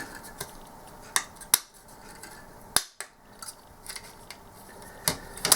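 A handful of sharp plastic clicks and taps, spaced irregularly, as the parts of a computer mouse are handled and clipped back into its plastic housing.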